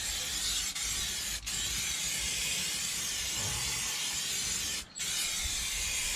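Aerosol spray can of white primer hissing steadily as it is sprayed onto a wheel, the nozzle let go for a split second twice.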